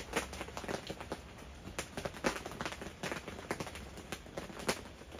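Irregular taps of raindrops falling on the tent, a few a second, over a faint steady hiss.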